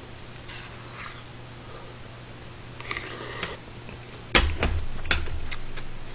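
Metal spoon clicking and scraping against a stainless steel rice bowl, with a louder knock a little after four seconds in as the bowl goes down on the metal tray, followed by a few lighter clicks.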